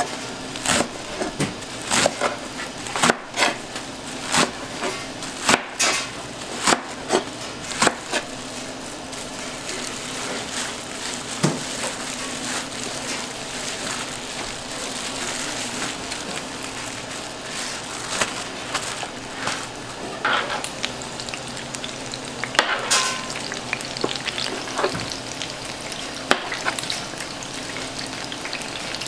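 Kitchen knife chopping a bunch of chives on a plastic cutting board, about two sharp chops a second for the first eight seconds. Then hands mix the chives through wet fish paste and a tool scrapes the board, with a few more knocks later on, all over a steady hiss.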